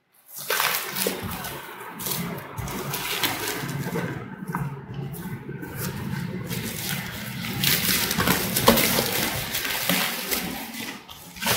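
Clear plastic stretch wrap crinkling and rustling as hands grip and pull it loose from a wrapped parcel, with sharper crackles about two-thirds of the way through.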